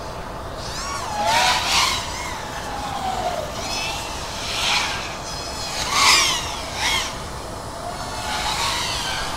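FPV racing quadcopter's motors whining as the drone flies, the pitch rising and falling with the throttle. It surges louder several times.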